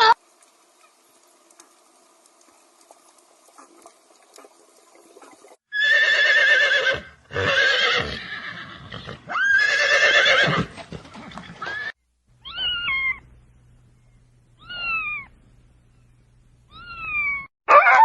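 Horse whinnying: three loud, quavering whinnies close together, about six to eleven seconds in, followed by three shorter, higher calls that fall in pitch.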